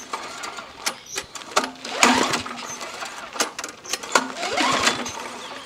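Recoil starter of a Craftsman push mower's engine pulled twice, about two seconds apart, the cord whirring out and spinning the engine over. The pulls are a compression test: the resistance at top dead center is judged a little low but enough to run.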